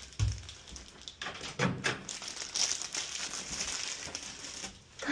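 Food packaging crinkling and rustling as it is handled and opened, in irregular crackles.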